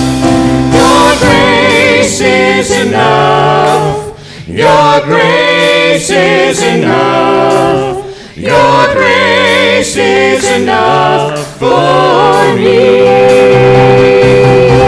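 Group of voices singing a worship song with music, the phrases separated by short breaks about 4 and 8 seconds in and ending on a long held note.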